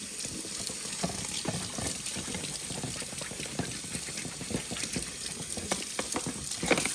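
Hands working in a sink of hot water: water splashing and sloshing, with a steady hiss and irregular small clicks and knocks of parts being handled, and a louder knock near the end.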